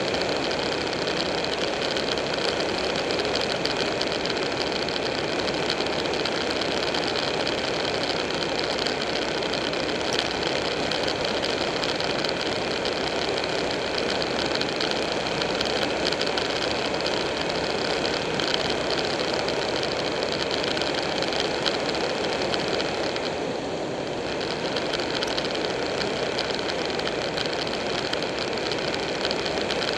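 Buell 1125R's V-twin engine running steadily at road speed, mixed with wind and road noise, easing briefly about three-quarters of the way through.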